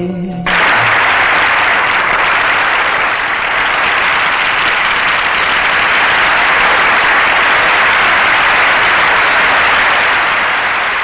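Steady, loud hiss of old television static, starting abruptly about half a second in as the held last note of a Hindi film song ends.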